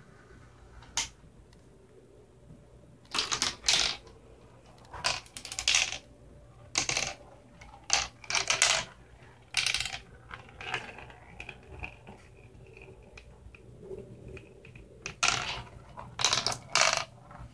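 Glass marbles clattering through a plastic marble run: irregular clusters of sharp rattling clicks, some single and some lasting up to a second, with a dense run of clatter near the end.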